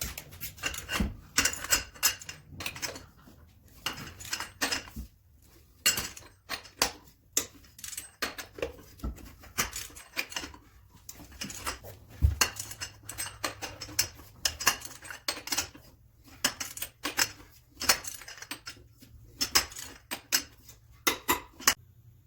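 Irregular metallic clinks and clicks of a wrench with a 22 mm socket working on a truck wheel's lug nuts as they are loosened.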